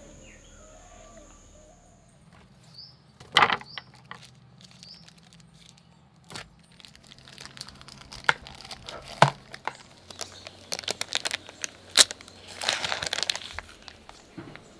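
Baking paper crinkling and tearing as it is handled and peeled away from set jelly, with a run of sharp clicks and crackles.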